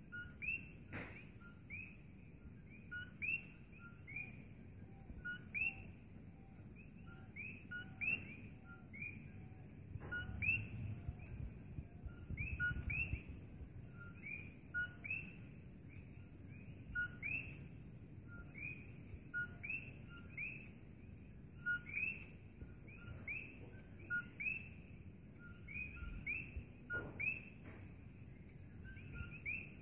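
Several coqui frogs calling over and over, each call a two-note "co-qui": a short low note and then a rising chirp. A steady high-pitched whine runs underneath.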